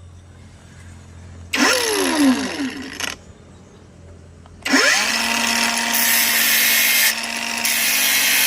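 Electric power tool motor switched on for about a second and a half, stopped, then started again about five seconds in and left running at a steady speed.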